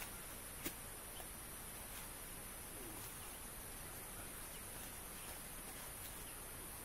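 Steady high-pitched chirring of insects, with a single sharp click a little under a second in.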